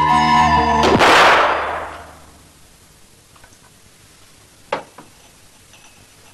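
Soundtrack music cut off about a second in by a loud crash that rings away over about a second. Then it is quiet, with a few light clinks of glass bottles, one sharper clink near the end.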